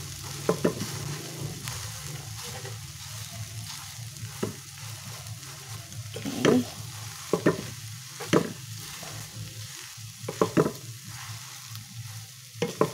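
Shredded cabbage with corned beef and egg sizzling in a nonstick pan as a wooden spatula stirs and tosses it, with a steady frying hiss and about ten sharp taps of the spatula against the pan, scattered irregularly.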